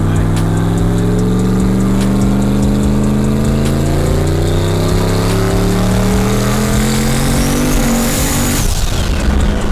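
Turbocharged 5.3-litre V8 making a full-throttle pull, revs climbing steadily for about eight seconds while the turbo whistle rises with it. Near the end the throttle closes: the engine note drops away with a short rush of air and the turbo whistle winds down.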